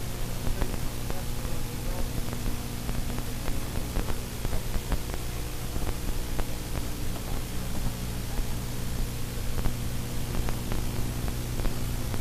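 Boat engine running with a steady low hum under constant hiss, with scattered light clicks and taps as fish are handled in a landing net.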